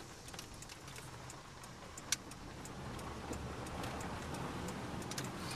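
Road and engine noise of a moving car heard from inside the cabin: a low steady hum with scattered small clicks and one sharper click about two seconds in.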